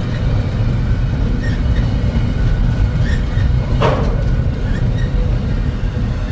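Long freight train rolling past, a steady heavy rumble of cars on the rails, with one sharp clank a little under four seconds in.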